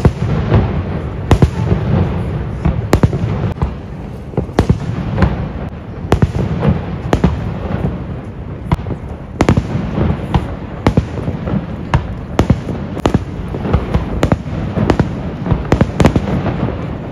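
Fireworks display: many sharp bangs and pops at irregular intervals, several a second, over a low continuous rumble.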